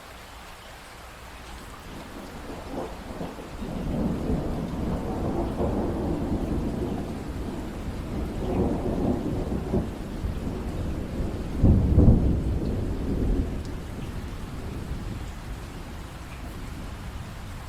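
Rolling thunder over steady rain. A low rumble builds a couple of seconds in and swells in several waves, is loudest about two-thirds of the way through, then dies away while the rain keeps falling.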